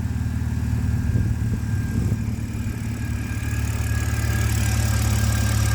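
BMW N52/N54 straight-six engine idling steadily through a muffler-deleted exhaust. No lifter tick can be heard now that the oil has been treated with a hydraulic lifter additive.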